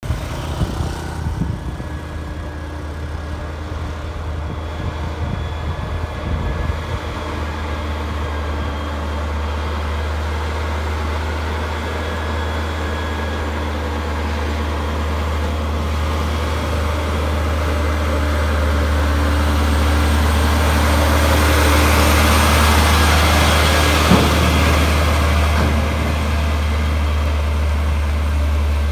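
Diesel engine of a tractor-trailer fuel tanker running with a steady low drone as it works round a hairpin bend, growing louder as the truck draws close, with a rushing of tyres and engine at its peak and a single short knock as it passes.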